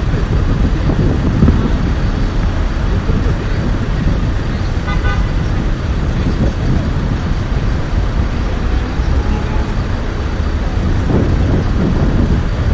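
Steady low rumble of motorway traffic mixed with wind on the microphone, with a short car horn toot about five seconds in.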